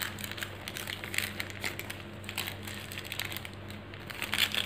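Plastic piping bag of cake batter crinkling and rustling as it is handled, in irregular bursts that grow louder near the end, over a faint steady low hum.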